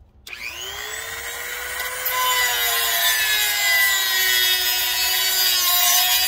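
Old Dremel rotary tool starting up about a third of a second in, its whine rising as it spins up, then its cut-off wheel grinding into a metal tab on a chrome fender from about two seconds in: a loud harsh hiss over the motor's whine, which sinks a little in pitch under the load of the cut.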